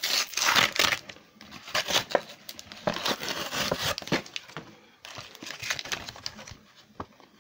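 Crinkly plastic and foil packaging of a Pokémon card three-pack crackling and crinkling as it is handled and pulled open by hand, easing briefly about two-thirds through.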